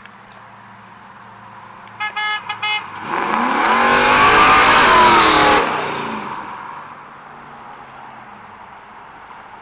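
A horn toots four times in quick succession, then the cammed LS1 V8 of a 1998 Pontiac Firebird Formula drives past loudly, its pitch sweeping as it goes by. The sound cuts off suddenly a little past halfway, leaving a fainter engine hum.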